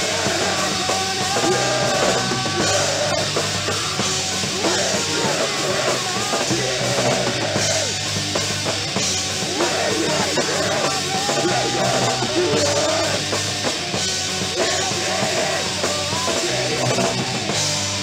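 Rock music with a full drum kit, played from a 7-inch vinyl record.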